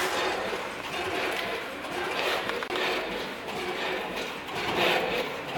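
Multi-head weigher and vertical form-fill-seal packing machine running, a continuous mechanical clatter of snack puffs rattling through the vibrating feed pans, hoppers and chutes, swelling and easing in repeated surges.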